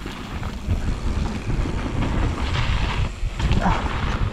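Wind buffeting the action camera's microphone, over the low rumble and rattle of a mountain bike rolling down a dirt trail.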